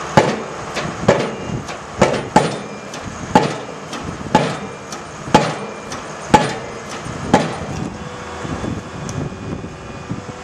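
Pile-driving hammer on a tracked piling rig striking a pile, heavy blows about once a second. The blows stop about seven and a half seconds in, leaving the rig's engine running.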